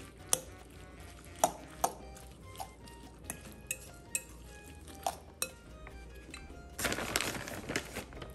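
Metal kitchen utensils clinking against pots and dishes, a sharp clink every second or so, then about a second of denser scraping near the end.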